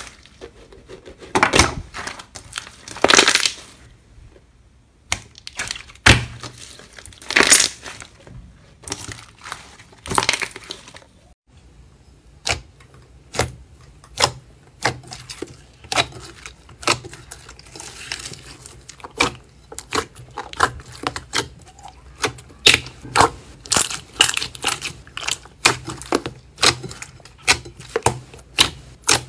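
Hands squishing and stretching slime. First come a few longer sticky crackling bursts. After a change about eleven seconds in, a thick pudding slime gives a run of short clicking pops as fingers press into it, about one to two a second.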